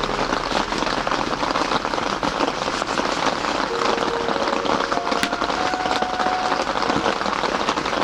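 Steady rain pattering, a dense even patter of countless small drop ticks.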